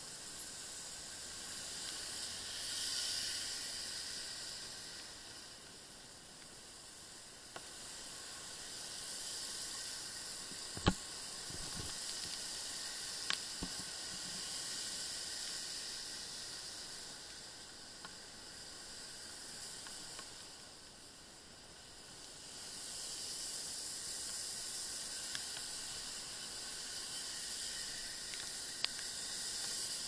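Hiss of tyres running on rain-soaked asphalt, swelling and fading several times, with a few sharp clicks, the loudest about a third of the way through.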